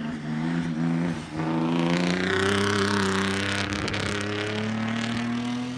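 Race car engine at full throttle on a hill climb run, with a short break in the note about a second in, then pulling steadily higher in pitch. It is loudest around two to three seconds in, as the car comes closest.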